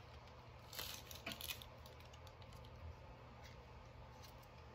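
Small plastic handling sounds: a few quick clicks and rustles about a second in as the plastic phone clamp of a ring-light holder is worked by hand, over a faint low hum.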